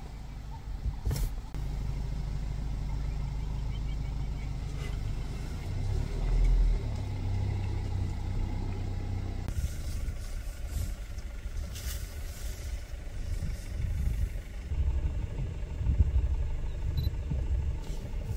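A car driving, with a steady low engine and road rumble.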